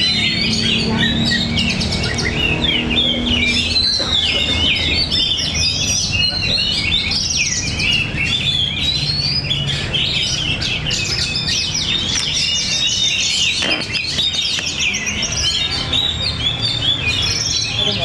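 Many caged Oriental magpie-robins (kacer) singing at once in competition: a dense, unbroken chorus of overlapping whistles, trills and chirps.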